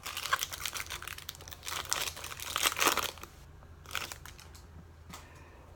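Foil wrapper of a Topps Chrome trading-card pack crinkling as it is torn open and handled: dense crackling for about three seconds, then a shorter burst about a second later.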